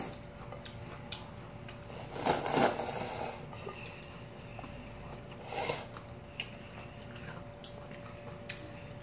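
Eating sounds: noodles slurped up from a bowl, with small clicks of chopsticks and spoon against dishes. The loudest slurp comes about two seconds in and lasts about a second; a shorter one follows just past the middle.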